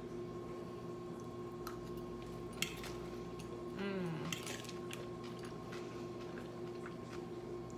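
A fork clicking and scraping now and then against a bowl of dressed salad as it is eaten, over a steady low hum.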